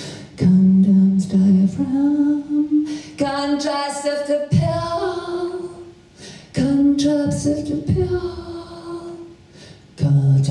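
A woman singing unaccompanied into a microphone: a string of long held notes with short breaks between them, and a lower vocal sound near the end.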